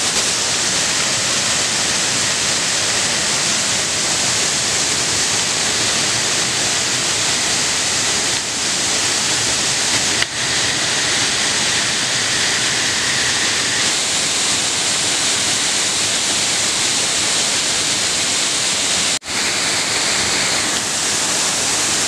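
Waterfall pouring onto rocks close by: a loud, steady rush of falling water, broken by two very short dropouts, one about halfway through and one near the end.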